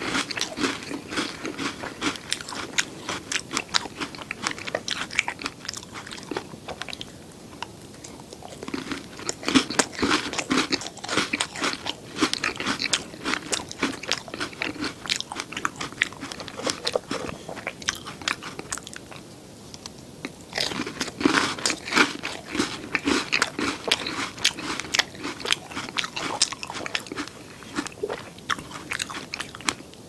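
Close-miked chewing and crunching of Oreo cookies topped with whole fresh strawberries: crisp cookie crunches mixed with wetter chewing. Twice the crunching dies down and then starts again louder.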